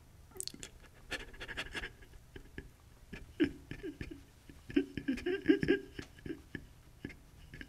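A man moaning and panting without words, in short breathy bursts that thicken from about three seconds in, with small clicks and rustles mixed in.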